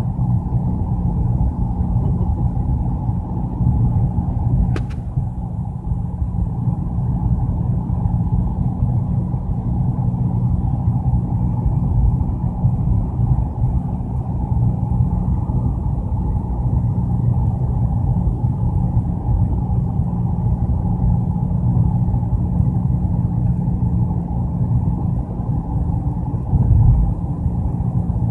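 Steady low rumble of a car heard from inside its cabin, with one short click about five seconds in.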